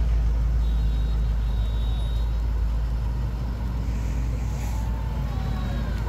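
Cars driving slowly past in a procession, engine and road noise over a steady low rumble.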